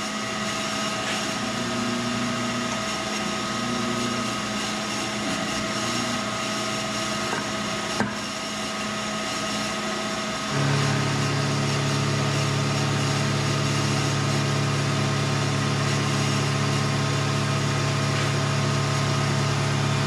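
Vertical knee milling machine running with a steady motor hum. A light click comes about eight seconds in, and a couple of seconds later a louder, lower hum joins and holds to the end.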